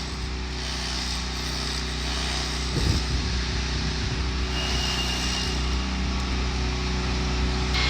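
Steady low hum of a running engine, with wind rumbling on the microphone.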